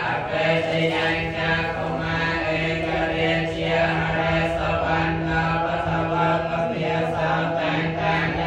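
Group Buddhist chanting in Pali: many voices recite in unison on one steady, droning pitch.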